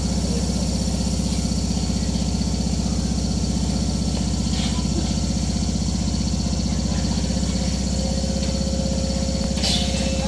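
A stationary Mizuma Railway 1000 series electric train with its onboard equipment running: a steady, loud, rhythmically pulsing low hum. A short hiss comes near the end.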